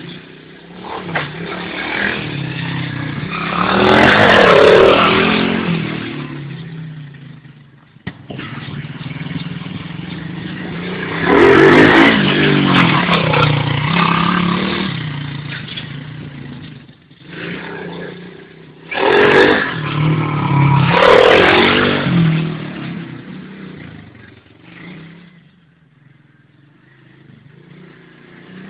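Pit bike engine revving hard in repeated bursts as the bike accelerates close by, four loud swells, dropping back to a lower, fainter running sound in between.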